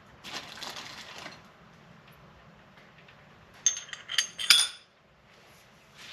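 Small metal parts clinking together during a motorcycle fork rebuild: a short rustling scrape near the start, then a quick cluster of sharp, ringing clinks about three and a half to five seconds in.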